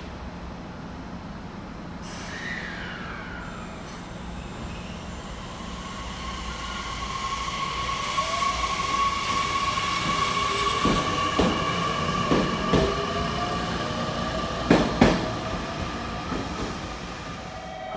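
JR Kyushu 813 series electric train pulling out and accelerating past, with motor whine rising in pitch over a steady high ring. Wheels knock over rail joints in a quick run of clacks, loudest about fifteen seconds in, before the train fades away.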